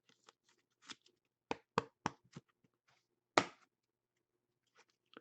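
Trading cards being handled on a table: about six short, sharp clicks and taps, the loudest about three and a half seconds in.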